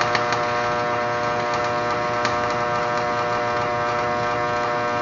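Stick-welding arc burning steadily for about six seconds, a loud even buzz with scattered crackles, then cut off sharply as the arc is broken.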